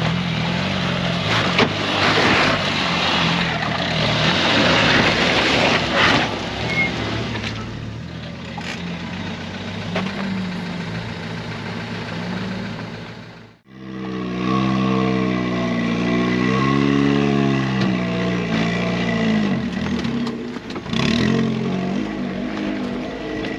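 Fiat Panda 4x4 engine running on an off-road trail, with clatter and knocks over it in the first half. It cuts off abruptly about halfway through, then the engine revs up and down.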